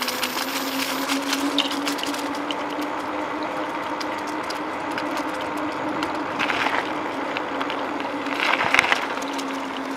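Bicycle riding along a path: steady tyre noise with ticking and rattling from the bike and a steady low hum. It gets briefly louder twice near the end.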